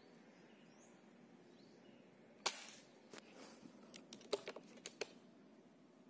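A single sharp air rifle shot about two and a half seconds in. It is followed by a string of metallic clicks as the rifle is handled, cocked and reloaded.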